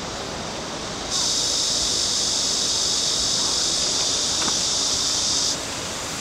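A steady, high-pitched insect chorus over a low background hiss; the chorus comes in suddenly about a second in and stops suddenly near the end.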